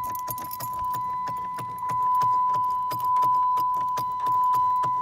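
Dodge Charger's dashboard warning tone sounding steadily, with rapid clicking (about eight clicks a second) over it, while the key is turned and the engine does not crank.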